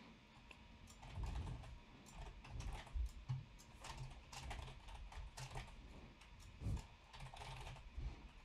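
Faint computer keyboard typing: irregular runs of keystrokes, starting about a second in.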